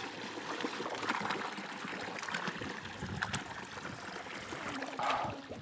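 Steady trickling of running water, with a few faint clicks and a brief swell near the end.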